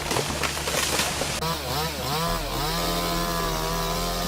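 Two-stroke chainsaw revved up and down a few times, then held at a steady high speed. Before that comes a rough, crackling noisy stretch.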